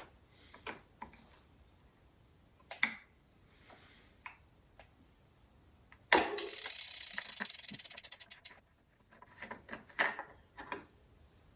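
Scattered metal clicks and knocks from work on bicycle pedals with an Allen key. About six seconds in comes a sharp knock, then about two seconds of rapid ratcheting clicks that slow and stop.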